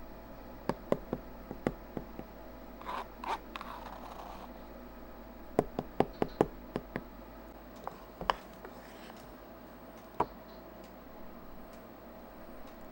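Objects being handled: a scattering of sharp clicks and light knocks in two clusters, with a brief scrape about three seconds in.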